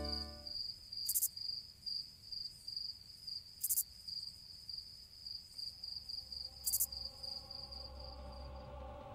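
Cricket chirping: a high, thin chirp repeated evenly about three or four times a second, with three short hissy noises in between. Faint music comes in near the end.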